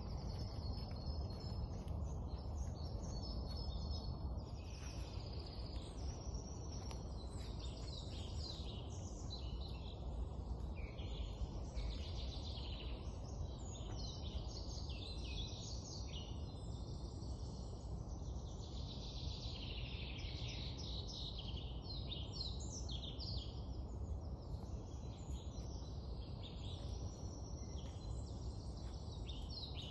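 Woodland songbirds singing: many short chirps and trills overlapping throughout, over a steady low background rush.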